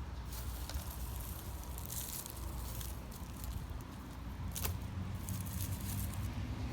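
Hands digging and rustling through loose potting soil in a potato container, with scattered crackles and a sharp click about four and a half seconds in, over a low steady rumble.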